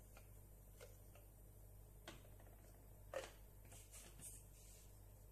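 Near silence with a low steady hum and a few faint, scattered clicks and taps as a plastic spice jar is handled and cinnamon powder is shaken into a saucepan of water.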